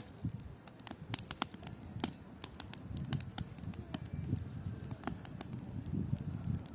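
Wood campfire crackling: irregular sharp pops and snaps over a low rumble.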